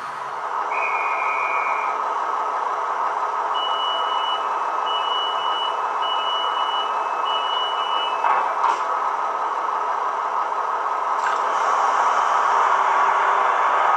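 Sound decoder of a Roco H0 model of the DB class 628 diesel railcar, played through the model's small speaker: the diesel engine running steadily, with a short high tone about a second in and then four evenly spaced door-warning beeps. A few clicks follow the beeps, and the engine sound swells near the end.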